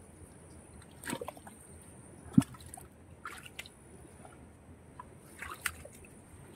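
Muddy water squelching and sloshing in short, scattered splashes as hands and bare feet work in a flooded mud hole, with one sharp thud about two and a half seconds in.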